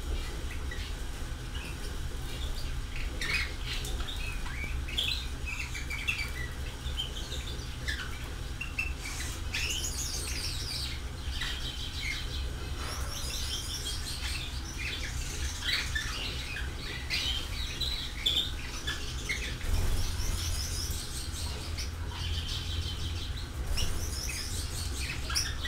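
Small birds chirping, many short calls and quick trills overlapping, over a steady low hum.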